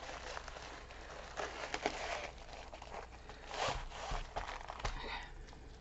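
White bubble-padded mailer envelope being torn and pulled open, with several short ripping and crinkling bursts.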